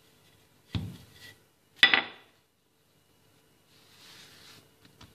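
A wooden rolling pin knocks on a granite countertop twice, a dull knock and then a sharper, louder clack about a second later, as it is laid down. Near the end comes a soft rustle of a plastic sheet being handled over the dough.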